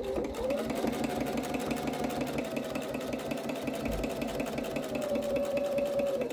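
Electric sewing machine stitching a zipper tape down onto quilted fabric: a steady motor whine with a rapid, even needle rhythm. It speeds up in the first half second and stops at the very end.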